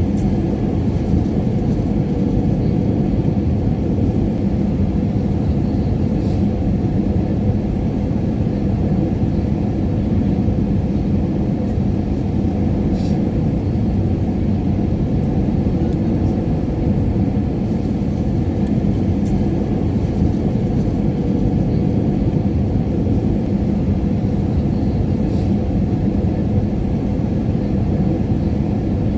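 Steady, low rumbling drone of an airliner cabin in flight, with a constant low hum running through it.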